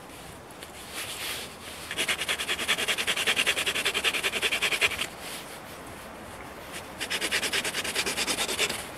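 A small folding saw cutting across a thin stick to shape a wedge. It makes two spells of quick, even rasping strokes, about ten a second: the first starts about two seconds in and lasts some three seconds, the second comes near the end.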